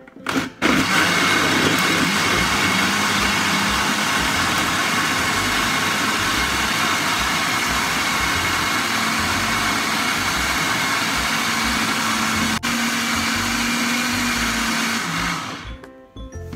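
Countertop blender starting up and running steadily at full speed, blending banana, eggs and milk into a liquid cake batter, then winding down and stopping near the end.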